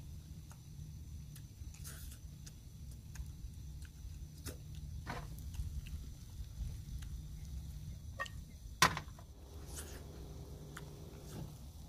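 Scattered light clicks and taps of a cooking utensil against a frying pan, with one sharp knock about nine seconds in, over a low steady rumble.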